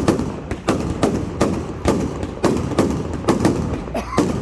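Fireworks display: a rapid run of shell bursts, about two to three loud bangs a second, each with a short echoing tail.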